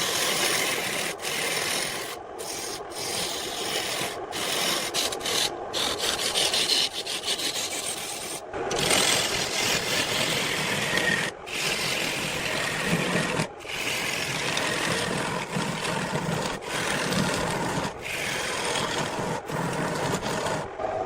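Wood being worked on a lathe: steady scraping and rasping of a tool against the spinning glued log-ring blank, broken by a few brief gaps.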